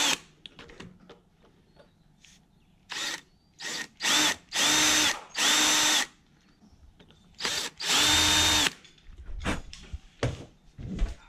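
Ryobi cordless drill drilling into the housing of a 1UZ-FE idle air control valve to expose the roll pin on its blind side. It starts with a few short blips, then three steady runs of about a second each. A few light knocks near the end.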